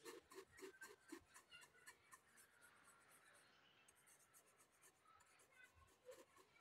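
Faint scratching of a pencil shading on sketchbook paper. A quick run of short strokes comes first, then a quieter stretch, then more strokes near the end.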